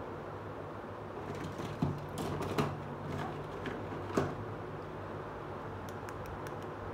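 Small plastic toy pieces being handled: a few light clicks and taps, the sharpest about two and four seconds in, over a steady low hum.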